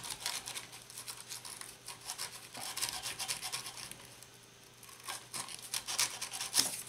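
Sandpaper scratching back and forth on a metal contact in a 1964 Voxson Zephyr 4 transistor radio, in irregular short strokes with a brief pause a little past the middle. The contact is being sanded to clean it because it makes a faulty, intermittent connection.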